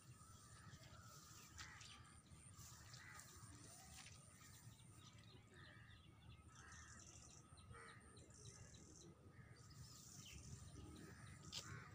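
Near silence with faint birds chirping: scattered short calls and a quick ticking trill, over a low steady rumble.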